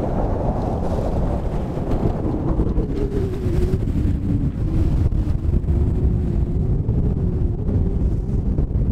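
Wind buffeting the microphone over the rush of water along a sailing yacht's hull as it beats upwind in about 20 knots of wind. A faint wavering tone comes in about two and a half seconds in.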